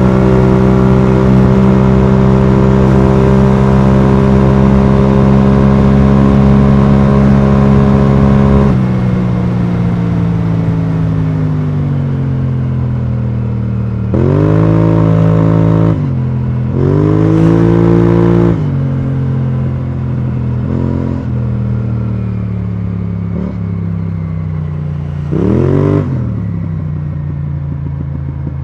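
BMW C650GT maxi-scooter's parallel-twin engine through an Akrapovic exhaust, holding a steady high note for about nine seconds before the throttle closes and the pitch falls away. Three short bursts of throttle follow, each with a quick rise in pitch, the last near the end.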